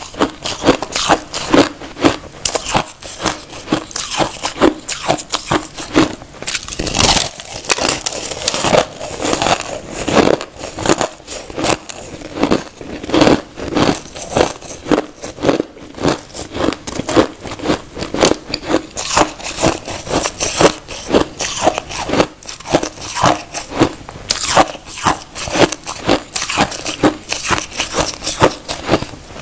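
A person biting and chewing a block of packed crushed ice close to the microphone: a steady run of crisp crunches, about two a second.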